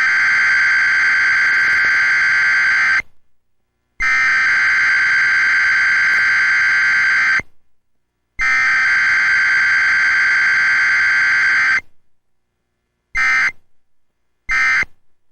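Emergency Alert System SAME digital header from a SAGE EAS ENDEC: a harsh, buzzing data tone sent three times, each burst about three and a half seconds long with a second's gap. It is followed near the end by two short end-of-message bursts, as in a Required Weekly Test.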